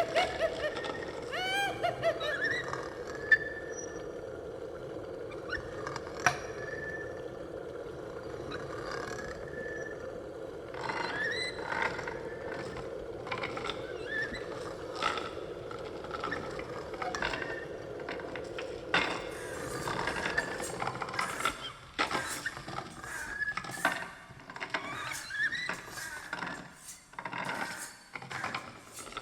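Torture-chamber horror sound effect. A steady low drone runs under wailing, squealing cries that glide up and down in pitch, with occasional sharp knocks. About two-thirds of the way in the drone drops out, and quick sharp hits and cries crowd together.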